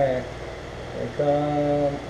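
A man's voice humming a held, low note about a second in, with a shorter one at the start, over the steady noise of the running lathe.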